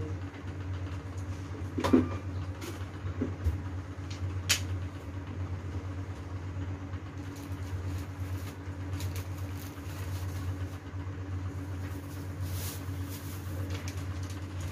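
A steady low hum with handling noises at a table: a sharp click about two seconds in, a lighter one at about four and a half seconds, and faint rustling and tapping later, as a small plastic drinking cup and medicine packets are handled.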